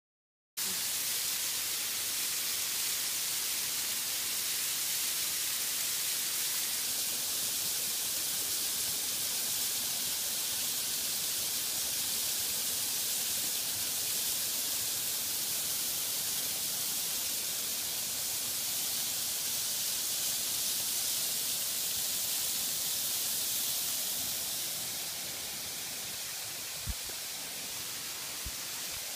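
Steady rushing of a waterfall in full flow, a loud even hiss with no pitch to it, starting about half a second in. It eases a little near the end, where two faint clicks are heard.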